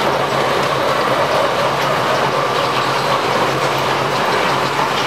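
Moving walkway in a métro corridor running: a steady mechanical rumble with a low hum and light clicking.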